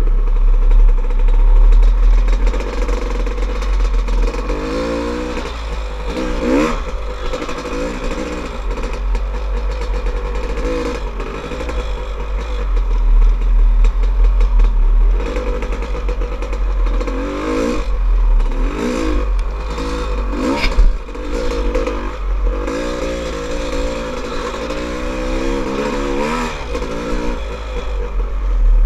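Dirt bike engine revving up and down through the throttle as it is ridden along a rough trail, under heavy wind rumble on a helmet-mounted microphone. A cluster of sharp knocks and rattles comes about two-thirds of the way through.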